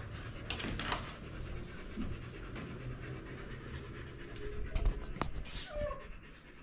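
A dog panting steadily close by, with a few sharp clicks and knocks about five seconds in.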